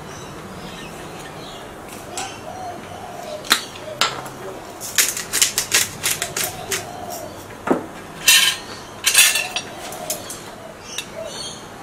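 Metal cutlery clinking and scraping on a ceramic plate and against dishes as pieces of crumbed fried fish are plated. There are scattered clicks, a quick run of clinks about halfway through, and two short scrapes soon after.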